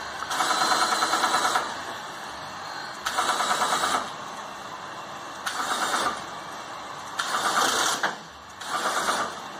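An A-26 Invader's flap drive motor running the flap drive shafts and transmissions in about five short spurts of roughly a second each, with pauses between: a rapid mechanical whir as the flap is jogged a little at a time.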